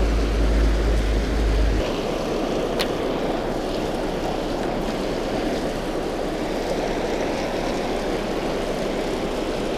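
Steady rush of water pouring over a river spillway. A low rumble underneath cuts off suddenly about two seconds in.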